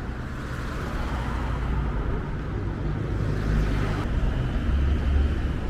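City street traffic: motor vehicles' engines running with road noise, growing a little louder toward the end.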